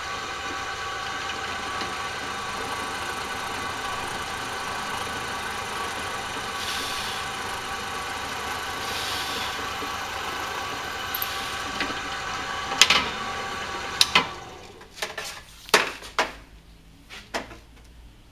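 Electric drill running steadily while boring holes into a wooden longbow for quiver inserts. About fourteen seconds in it stops, followed by several sharp clicks and knocks.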